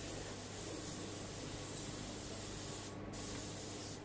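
Compressed-air gravity-feed spray gun hissing steadily as it sprays, with a brief break about three seconds in.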